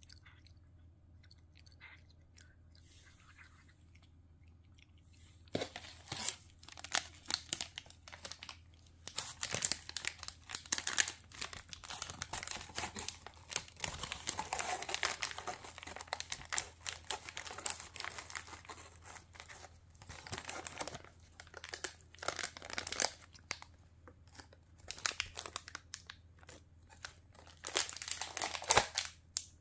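A cat chewing a cat-stick treat close to the microphone, in irregular bursts of chewing that begin about five seconds in and go on, with short pauses, until near the end.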